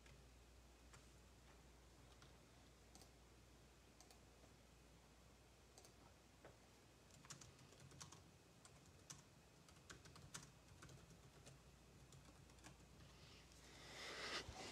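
Near silence with faint, scattered clicks of typing on a computer keyboard, coming more often from about halfway through. A brief rush of noise near the end.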